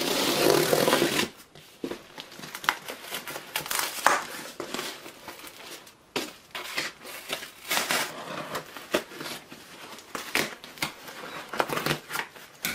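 Packing tape and a cardboard box being cut open with scissors: a loud scrape of the blade drawn along the tape for about the first second, then irregular crackling and rustling of tape and cardboard as it is cut and torn.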